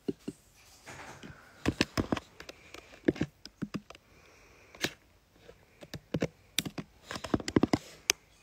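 Irregular clicks and taps on a smartphone being tapped and handled close to its own microphone, coming in small clusters.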